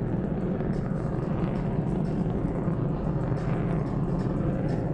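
Turkish Air Force F-16C fighter jet flying overhead on afterburner: its engine makes a steady, deep jet rumble.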